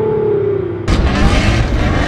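Distant car engines running with a steady note that slides down in pitch as the cars slow after a quarter-mile drag run. Just under a second in this cuts off abruptly into a loud blast of racing-engine noise.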